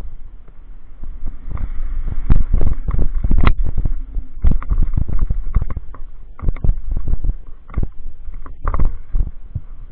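Downhill mountain bike rattling over a rough dirt and rock trail: irregular knocks and jolts from the bike and camera mount over a constant low rumble.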